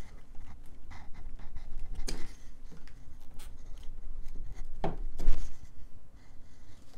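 Quick-disconnect spade connectors being pulled off the terminals of a small sealed lead-acid battery: scattered small clicks and scrapes with handling rumble, and a heavier knock about five seconds in.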